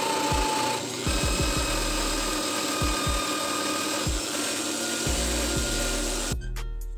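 Electric drill clamped in a vise spinning a metal knife pommel on a bolt, with sandpaper and then an abrasive pad pressed against it: a steady whir with the hiss of grit rubbing on metal. It cuts off suddenly near the end, leaving background music.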